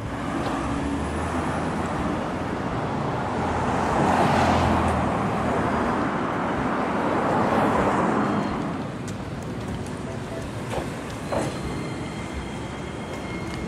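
Road traffic: a vehicle passing, its noise swelling for several seconds and fading away after about nine seconds, with a few short clicks near the end.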